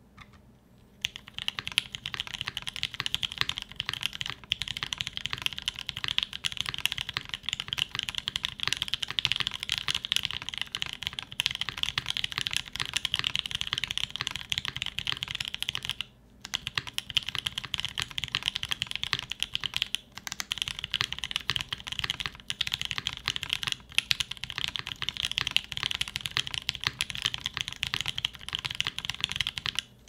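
Continuous typing on a Cannonkeys Brutal60 mechanical keyboard with lubed TKC Kiwi tactile switches, an FR4 plate, polyfill dampening and GMK keycaps: a dense run of key clacks starting about a second in, with a brief pause about halfway. The owner finds these switches sound inconsistent because they were lubed unevenly.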